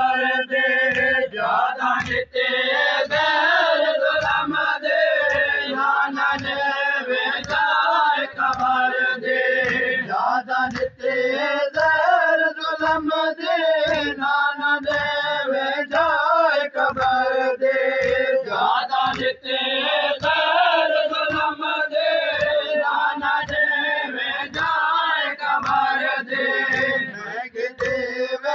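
Men's voices chanting a noha, a mourning lament, together in a wavering melodic line, over a steady rhythm of low thuds from hands beating on chests (matam), a little more than one a second.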